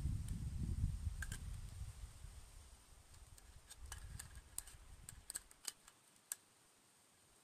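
A handheld camera being worked, giving a dozen or so small, sharp clicks of its buttons and dials, bunched mostly in the second half. Under the first clicks a low rumble dies away over the first five seconds.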